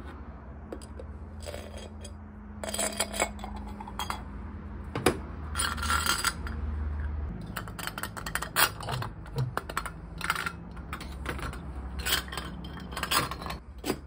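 Irregular metal clinks, clicks and scrapes as a stainless steel ball body and its steel threaded rod are handled, pulled apart and fitted back together, with a sharp clink about five seconds in and another near the end.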